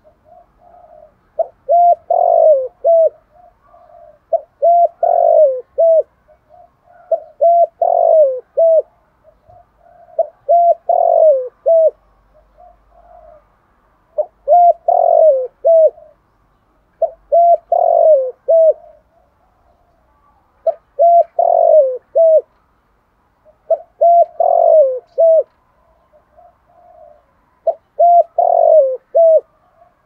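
Spotted dove with a deep 'thổ' voice cooing, repeating a phrase of several low coos about every three seconds, with softer coos between the phrases.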